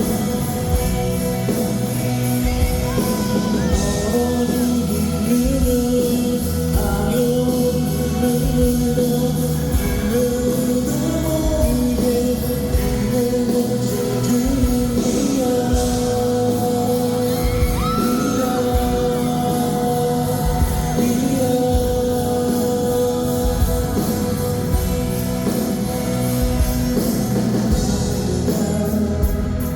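Rock-pop song with a singer over a band and a steady beat.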